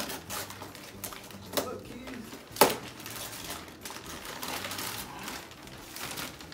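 Gift wrapping paper being torn off a box in a quick run of rips and crinkles, with one loud sharp snap about two and a half seconds in.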